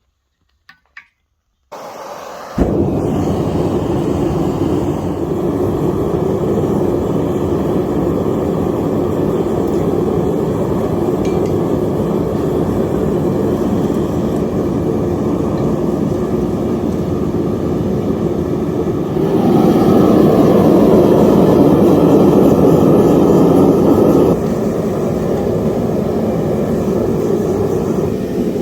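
A forge being lit: a couple of faint clicks, then the forge fire starts up about two seconds in and runs with a loud, steady rushing noise. It grows louder for about five seconds past the middle, then settles back.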